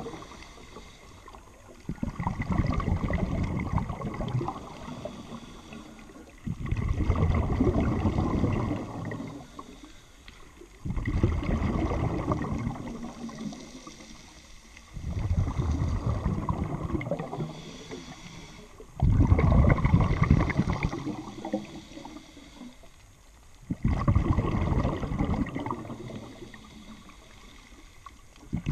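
Scuba diver breathing underwater through a regulator: six bubbling exhalations, each a few seconds long, about every four and a half seconds, with quieter inhalations between.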